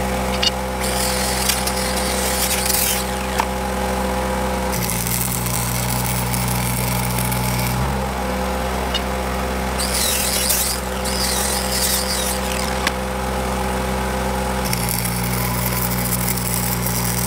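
MIG welding on rail steel, building up a worn switch-point tip with short beads: stretches of crackling arc, the last starting about three-quarters of the way through. Under it runs the steady hum of an engine-driven power source, whose tone shifts several times.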